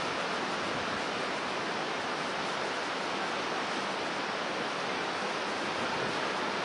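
Steady roar of rough storm surf breaking on a rocky shore.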